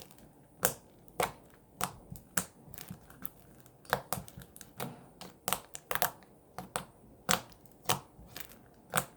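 Foam slime being pressed and poked with the fingers, giving a run of sharp, crunchy crackles and pops about every half second, irregularly spaced.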